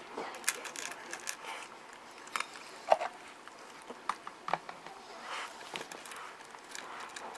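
A cat crunching dry kibble from a stainless steel bowl: irregular crisp crunches and clicks, the sharpest about three seconds in.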